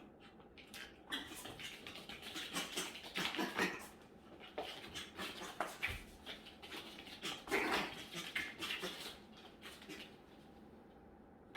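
Maltese puppy making a run of short, scratchy sounds, from about a second in until near the end.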